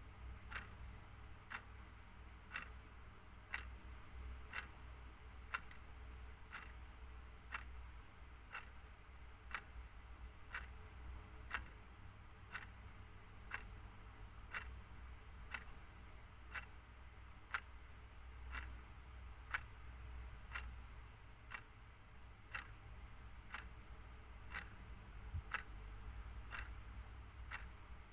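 Clock ticking steadily at about two ticks a second, sharp and evenly spaced.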